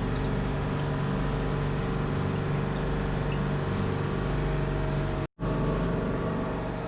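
Boat engine running steadily, with a hum of even tones. The sound drops out completely for an instant about five seconds in.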